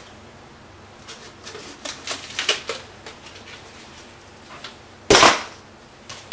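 Light clicks and rattles of dry ice pellets and a clear plastic cup being handled in gloved hands, with one louder short clatter about five seconds in.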